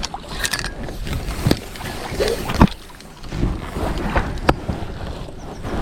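Wind rumbling on the microphone, with a few sharp knocks and clicks about a second or two apart, the loudest a little over halfway through.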